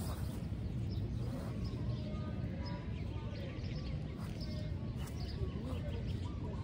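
Steady low background rumble with faint, short bird chirps scattered through it.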